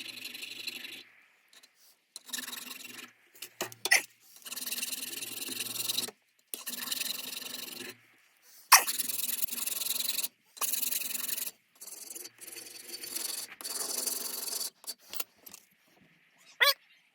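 Hand file rasping along the steel shaft of a vintage machinist's screwdriver, in a series of long strokes with short pauses between them, to work out deep dents and scratches. A short squeal comes near the end.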